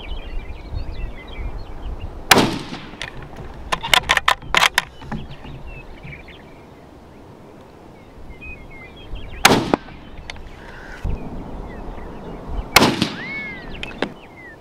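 Three rifle shots from a Ruger 77/17 bolt-action rifle, each a single sharp crack. The second comes about seven seconds after the first, and the third about three seconds after that. Soon after the first shot comes a quick run of metallic clicks as the bolt is worked.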